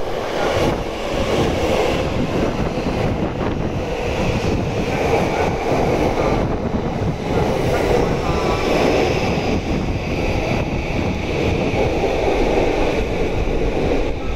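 Yokosuka Line E235 series electric train rolling slowly along the platform as it pulls in to stop, largely buried under heavy wind noise buffeting the microphone.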